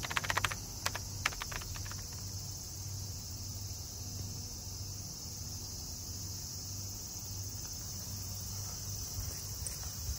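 Insects shrilling in a steady, unbroken high-pitched chorus over a low background rumble, with a handful of sharp clicks in the first two seconds.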